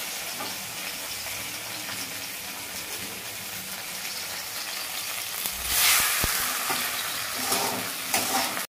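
Batter-coated pumpkin flowers shallow-frying in oil in a pan: a steady sizzle that swells briefly louder about six seconds in.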